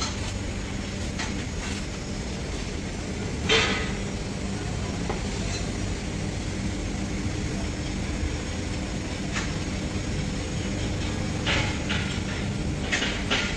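A steady low mechanical hum, with scattered knocks and clicks: one sharp knock about three and a half seconds in and a run of clicks near the end.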